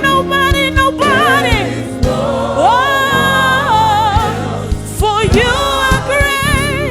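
Live gospel worship music: voices singing long held, wavering notes with wide vibrato over a band, with regular drum hits underneath.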